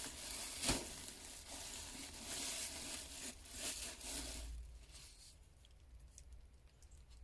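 Paper packaging crinkling and tearing as an item is unwrapped by hand. The rustling stops about four and a half seconds in, leaving only faint handling noise.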